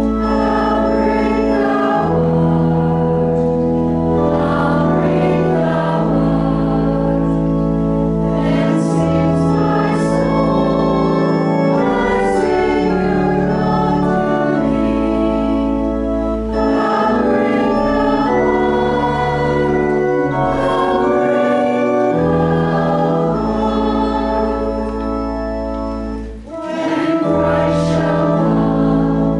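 A hymn sung by a choir or congregation with organ accompaniment, in slow sustained chords with held bass notes. There is a brief break between phrases near the end.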